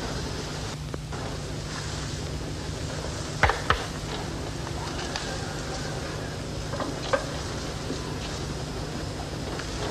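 Steady hiss and low hum of an old television recording, broken by a few light taps: two close together about three and a half seconds in and one more about seven seconds in.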